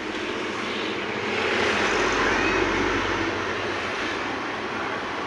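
A road vehicle passing close by: a steady traffic noise that swells with a low rumble about two to three seconds in, then fades back.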